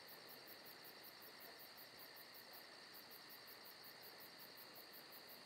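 Near silence: a faint steady high-pitched hiss.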